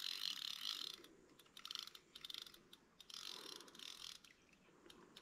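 Fishing reel clicking in quick ratcheting runs that stop and start, with a hooked carp on the line. The runs come at the start, briefly about two seconds in, and again around three to four seconds in.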